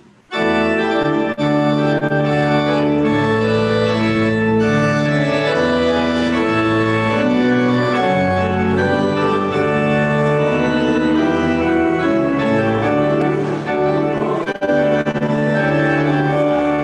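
Church organ starting suddenly and playing a postlude in full held chords that shift every second or two, with one brief break about three-quarters of the way through.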